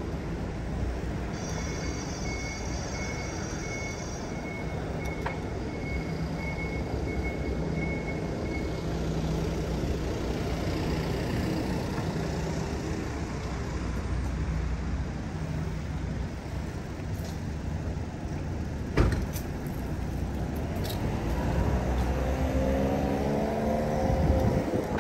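Steady road and riding noise from a moving bicycle, with motor traffic passing. A high, pulsing tone sounds for several seconds from a couple of seconds in, there is a single sharp knock later, and near the end a vehicle's engine rises in pitch as it goes by.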